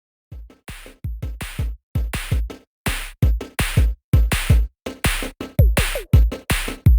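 Electronic background music: a drum-machine beat of deep kicks that drop in pitch and sharp snare-like hits, several a second, starting a moment in.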